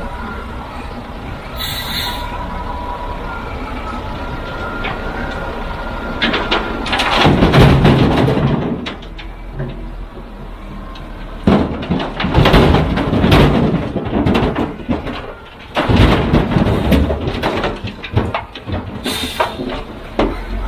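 Heavy machinery working: a steady engine rumble broken by three long stretches of loud clattering and banging.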